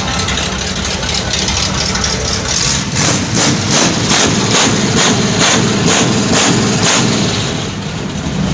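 Ford Galaxie 500's V8 engine idling steadily. For a few seconds in the middle, a sharp tick sounds about twice a second over the idle.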